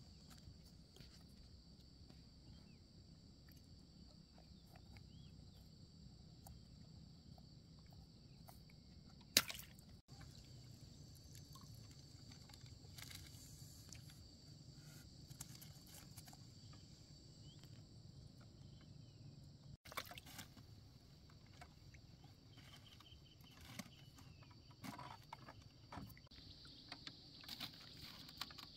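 Quiet water sounds with light clicks, drips and rustles as a wet nylon fishing net is handled in a small bamboo boat, with one sharper knock about nine seconds in and a busier patch of small clicks near the end. A steady faint high-pitched hum lies underneath.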